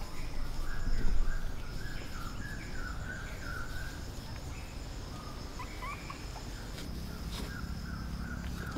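Forest ambience: insects keep up a steady high-pitched buzz, while short, high chirps repeat every fraction of a second.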